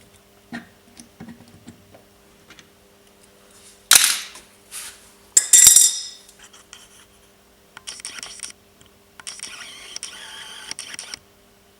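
Hand work on metal parts: two loud clatters about four and five and a half seconds in, then two stretches of scraping, over a faint steady hum.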